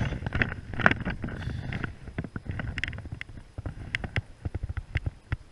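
Wind rumbling on the microphone, with many small irregular clicks and knocks over it that thin out near the end.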